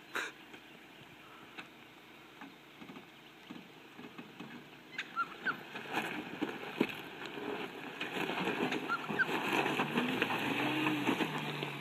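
Volkswagen Amarok ute crawling over a steep loose-gravel slope: a low engine rumble with tyres crunching and stones clicking under the wheels. The engine grows louder in the last few seconds, its note rising briefly. A short high chirp comes every few seconds.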